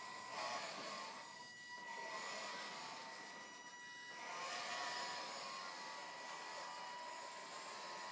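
Electric motor and gearbox of an RC Land Rover Defender 110 scale crawler whining steadily as it drives, the whine dipping twice.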